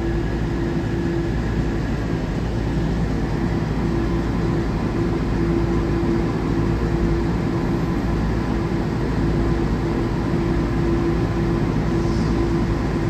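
Steady hum inside a stopped Newark AirTrain monorail car, with a steady droning tone over a low rumble.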